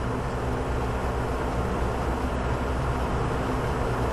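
Steady low hum of a running machine with an even hiss over it, unchanging in pitch and level throughout.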